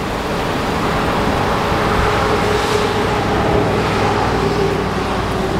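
A motor running steadily, a constant mechanical hum with a noisy wash over it.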